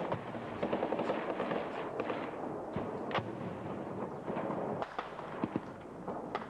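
Gunfire in combat: a dense, continuous crackle of many shots that thins out after a few seconds into scattered, sharper single reports.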